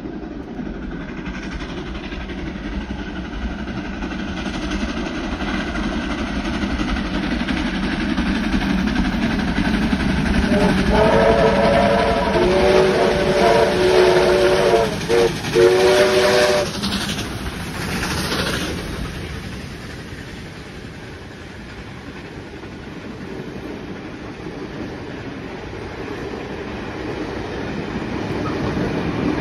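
Double-headed steam train led by locomotives R766 and 5917 approaching and passing. Its steam whistles sound a few chord-like blasts midway, as the train noise builds to its loudest, and then the carriages roll by with wheels clacking over the rail joints.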